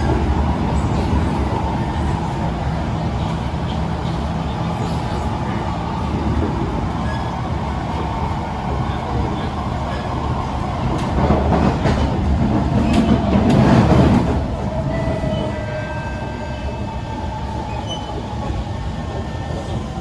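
Kawasaki C151 metro train running between stations, heard from inside the car: a steady rumble of wheels on the track, swelling louder for a few seconds past the middle, with a few faint thin whistling tones after it.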